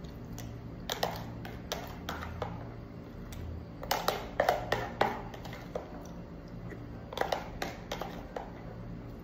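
A plastic spoon scraping and tapping inside a clear plastic food container of açaí with tapioca flour: irregular clicks and scrapes, with a quick cluster about four seconds in and another near the end.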